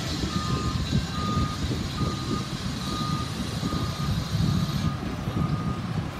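Backup alarm of a 2007 Pierce Quantum fire engine beeping a little faster than once a second as the truck reverses, over the steady low rumble of its diesel engine.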